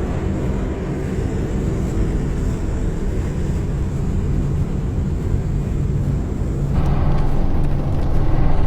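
Steady drone of propeller aircraft engines in flight, a dense low hum. It grows fuller about seven seconds in.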